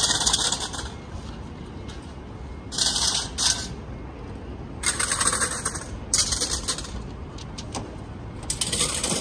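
City street background with five short bursts of high hissing noise, each under a second long.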